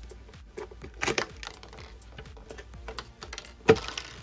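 Sharp plastic clicks and knocks as the Marshall Kilburn III's bottom panel is pried loose by hand, with a cluster of clicks about a second in and a louder single click near the end.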